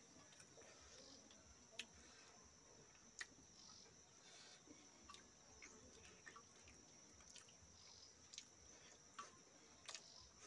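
Near silence: a faint, steady high insect drone like crickets, with scattered faint clicks and smacks from eating by hand off a steel plate.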